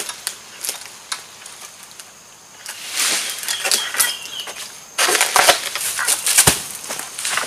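Egrek long-pole harvesting sickle cutting an oil palm fruit bunch from its stalk: rustling and cracking of stalk and fronds, growing louder about three seconds in. About five seconds in comes a loud crashing stretch as the bunch breaks loose, with a heavy thud when it lands.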